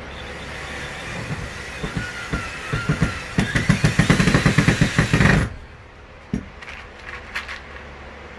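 Cordless drill driving a drywall screw through a steel hinge into the wooden bed platform. The motor whine rises and turns into rapid clicking as the screw seats, then cuts off suddenly about five and a half seconds in. A few light clicks of hardware being handled follow.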